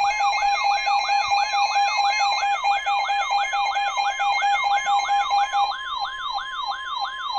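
Electronic emergency alert siren sounding the alarm for a severe thunderstorm warning: a loud, fast warble that rises and falls about three times a second over steady tones. Near the end the warble stops, leaving a single steady tone.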